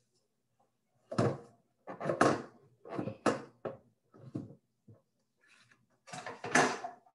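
A run of separate clunks and knocks as a portable electric hot plate and cookware are shifted about on a stone countertop. The knocks come in a quick cluster, then two louder ones near the end.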